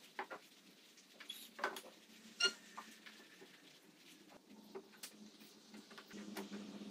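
Light knocks and clicks of glued pine workpieces being handled and set down on a table saw's cast-iron top, with a bar clamp being brought to them. The loudest is a short, high squeak-like click about two and a half seconds in, over a faint steady hum.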